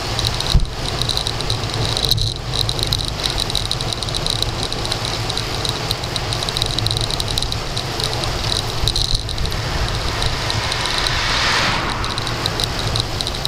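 Wind rushing and buffeting over a handlebar-mounted SJ1000 action camera's microphone on a road bike descending at speed, with steady road and tyre rumble. A high, steady chirring runs through it.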